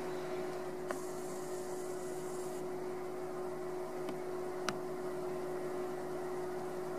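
Steady background hum with a constant pitch and light hiss: room tone. Two faint clicks, about a second in and near the middle.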